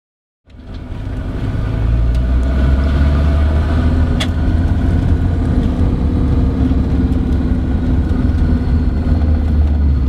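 Car driving along a road: a steady low engine and road drone that fades in about half a second in and then holds level, with a single click about four seconds in.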